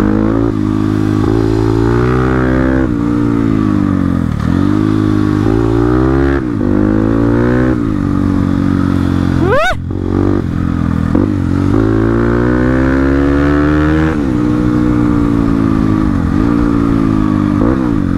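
Crossfire RM250 dirt bike's 250 cc engine, heard close up, revving up and dropping back again and again as the rider works the throttle and shifts gears. About ten seconds in, a brief shrill tone sweeps quickly upward.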